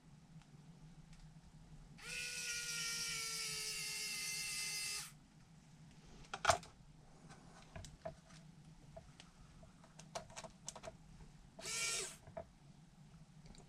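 Cordless electric screwdriver driving small screws: one run of about three seconds with its whine sinking slightly in pitch, then a brief second burst near the end. A sharp click and light ticks of small parts being handled between the runs.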